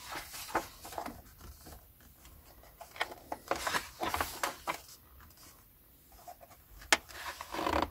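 Paper pages being turned and handled: short crisp rustles and light taps, with one sharp click about seven seconds in.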